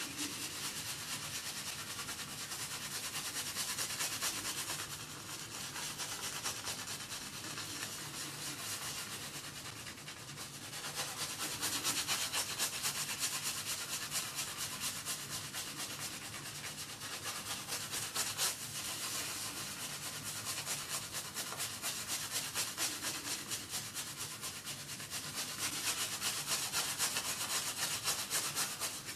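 Omega boar-bristle shaving brush scrubbing back and forth over a shaved scalp, a rapid, rhythmic bristly rasping as shaving soap is worked into lather on the head.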